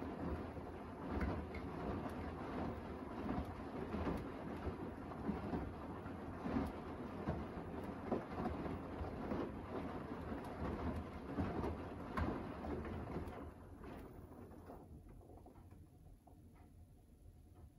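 Beko washer-dryer drum tumbling a wet, foamy load in the wash phase: irregular sloshing and slapping of water and laundry inside the drum. About fourteen seconds in, the drum slows to a stop and the sound fades to a faint hum.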